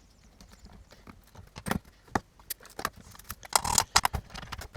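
Irregular metal clicks and knocks, with a short clattering rattle about three and a half seconds in, as a two-stroke motorcycle engine's gearbox shafts are handled and fitted into the crankcase half.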